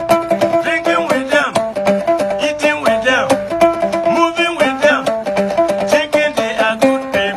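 Instrumental music led by plucked string instruments playing a fast, unbroken run of notes, with a few sliding pitches above it.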